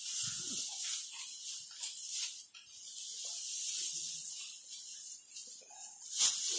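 Dry straw rustling and crackling as it is handled and pressed by hand into a thatch panel, with one sharper crackle about six seconds in.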